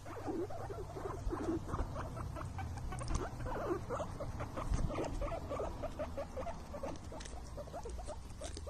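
Guinea pig at a ceramic water bowl, making a rapid run of short, small squeaks and wet smacks as it drinks, over a steady low hum.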